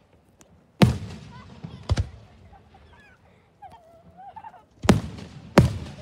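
Aerial fireworks shells bursting overhead: four sharp bangs, one about a second in, one at two seconds, and two close together near the end, each trailing off into a rolling echo.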